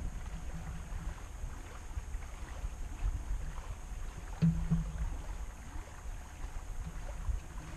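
Sailboat under way in light air: a low, steady rumble of wind and water along the hull, with faint scattered ticks and a brief low tone about four and a half seconds in.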